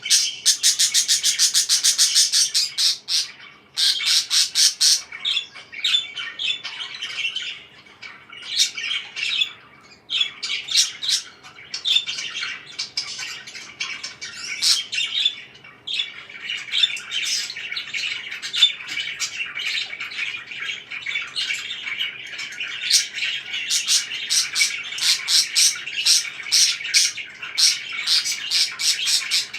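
Parakeets chirping and chattering in rapid, overlapping runs of high-pitched calls, with brief lulls now and then.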